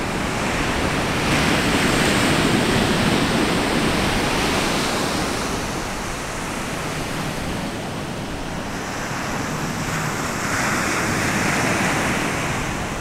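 Ocean surf breaking and washing up a sandy beach, a steady rush that swells about two seconds in and again near the end.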